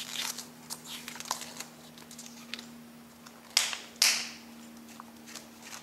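Paper pages of a hardcover book rustling as they are handled, with two quick swishes of a page flapping back and forth about three and a half seconds in, over a faint steady hum.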